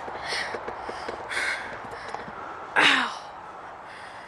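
A person breathing hard and gasping, out of breath from wrestling, with short breathy gasps about a second apart and a louder gasping grunt about three seconds in.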